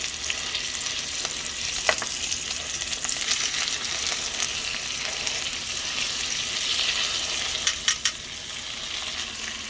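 Duck breast sizzling steadily in a hot pan, just turned over to sear the second side, with a few sharp clicks about two seconds in and near the end.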